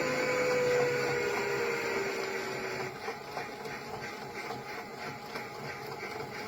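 Toy washing machine's electronic washing sound effect: a whirring tone that falls slowly in pitch for about three seconds, then a rhythmic churning a few times a second.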